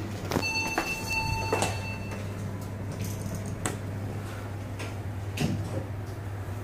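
Otis elevator car: an electronic beep sounding for about two seconds just after the start, a few sharp clicks and knocks, and a steady low hum underneath.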